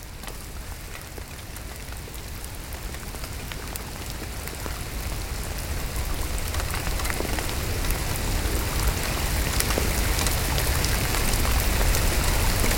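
Heavy rain falling: a dense hiss of drops with many sharp ticks and a low rumble underneath, getting steadily louder.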